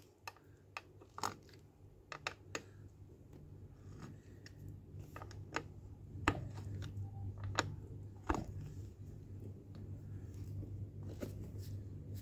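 Hex key turning a bolt in a gaming chair's metal backrest bracket: scattered sharp metal clicks and light scrapes as the bolt is screwed in, over a steady low hum.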